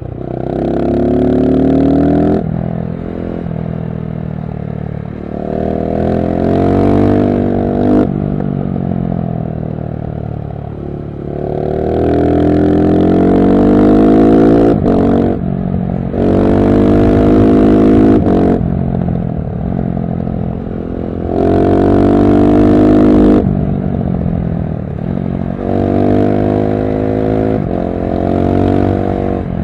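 KTM SMC-R 690's single-cylinder engine, heard through a LeoVince One Evo slip-on exhaust with dB-killer, accelerating hard again and again. The pitch climbs about seven times and drops back between climbs as the rider shifts or rolls off the throttle.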